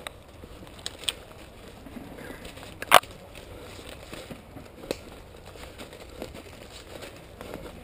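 Crackling and snapping footsteps in woodland leaf litter and twigs: scattered short sharp clicks, with one loud sharp crack about three seconds in.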